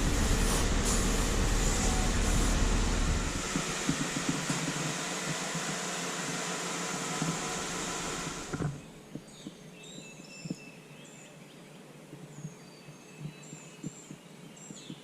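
Steady road-like rumble and rushing noise from a moving vehicle, which cuts off abruptly about two-thirds of the way in. Songbirds chirping at dawn take over, with a few faint ticks.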